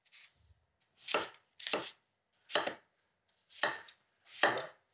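Kitchen knife slicing apples on a wooden cutting board: five separate cuts, each ending in a knock of the blade on the board.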